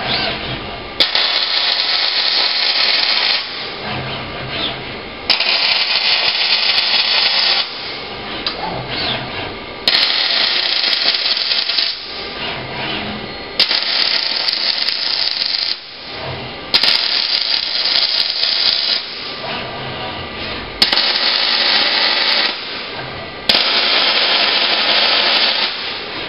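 Robotic MIG welding arc sizzling in a series of about seven short welds, each lasting about two seconds, with quieter gaps of a second or two between them. The last weld is still running at the end.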